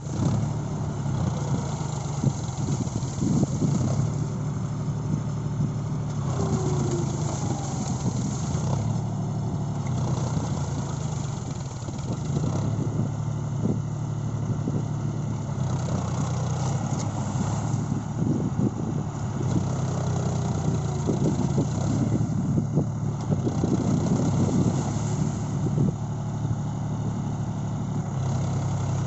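John Deere 5042 tractor's three-cylinder diesel engine running steadily under load as it drags a leveller through a flooded field on iron cage wheels, with short irregular knocks and splashes from the wheels and implement in the mud.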